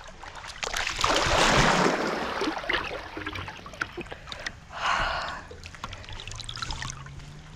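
Water splashing and sloshing right at the microphone as a swimmer moves through the spring pool, with a longer rush about a second in and a shorter one about five seconds in.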